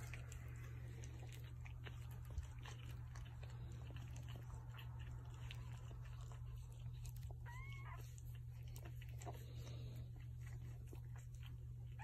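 Faint rustling and soft clicks over a steady low hum, with one short, high squeak from a newborn puppy about seven and a half seconds in.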